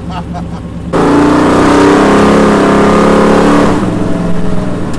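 Twin-turbo engine of a custom 1964 Ford Galaxie with a muffler-less 4-inch stainless exhaust, heard from inside the cabin: it cruises, then about a second in is put under hard acceleration and runs loud for about three seconds before easing off.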